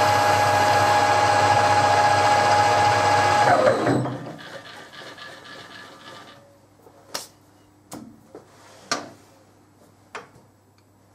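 Metal lathe running with a steady whine, then switched off about three and a half seconds in, its pitch falling as the spindle spins down. After that come a few sharp clicks and knocks.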